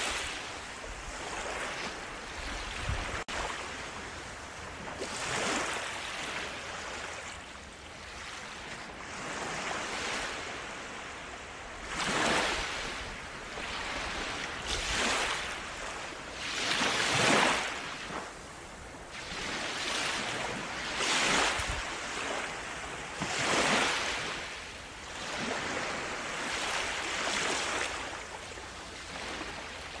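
Small waves breaking and washing up a sandy beach, a surge of surf every few seconds, some louder than others.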